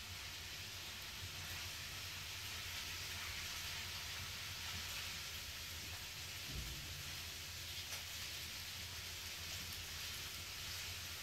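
Steady hiss with a low hum underneath: room tone and microphone noise, with no distinct event standing out.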